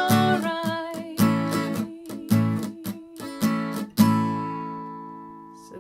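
Acoustic guitar played in a reggae offbeat strumming pattern: short, clipped, muted chord chops between fuller strums. A last strummed chord at about four seconds rings on and slowly fades.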